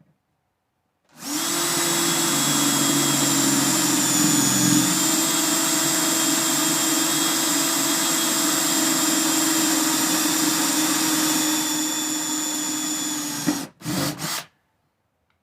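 Electric drill running steadily, drilling the mounting holes in the car's sheet-metal shock tower, for about twelve seconds. It stops, then two short bursts of the drill follow near the end.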